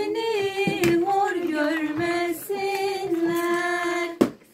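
A woman singing a traditional Turkish henna-night folk song without accompaniment, drawing out long held notes. A sharp knock sounds about four seconds in, and the singing breaks off for a moment.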